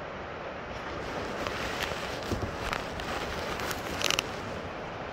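Steady background noise with a few light clicks and rustles through the middle, and a short burst of louder clicking about four seconds in.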